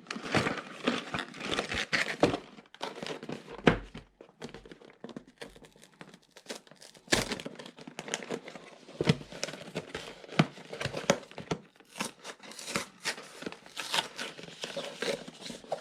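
A Lego Technic set's cardboard box being torn open and handled, with crinkling and tearing packaging and many irregular small clicks and a few louder knocks.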